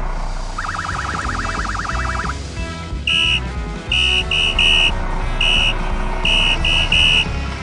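Cartoon background music with a fast warbling tone for about two seconds, then a run of short, high electronic beeps like a toy car horn: one beep, three quick ones, one, then three more.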